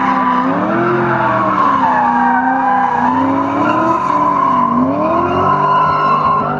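Two BMW E30 drift cars drifting in tandem: the engines rev up and down over and over as the drivers work the throttle, over a steady squeal and skid of sliding rear tyres.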